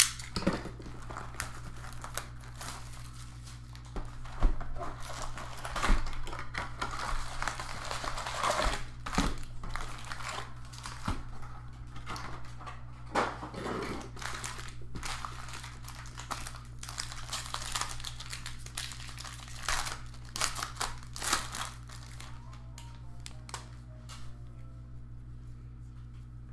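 Trading card pack wrappers crinkling and tearing as Bowman Draft baseball card packs are opened, with irregular clicks and rustles of cards being handled. A steady low hum runs underneath.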